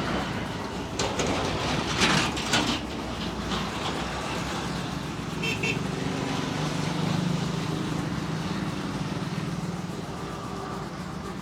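Roadside traffic: vehicles running past, with a short horn toot about five and a half seconds in and an engine drone swelling soon after. Near the start come a few sharp knocks or slaps.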